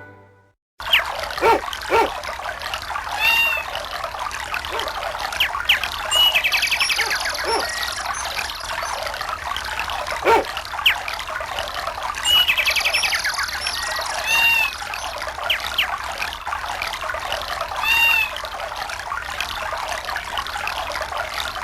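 A Samsung SGH-D500 nature-sounds ringtone: birds chirping over steadily running water. The same bird calls come back every few seconds.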